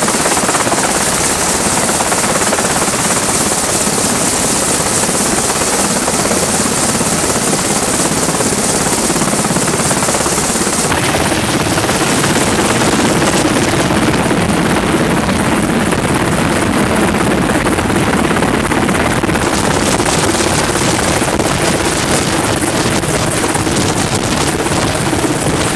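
MH-60 Seahawk helicopter's turbines and main rotor running at takeoff power, a loud steady din. About eleven seconds in, a high whine climbs slightly in pitch as the helicopter lifts off the deck.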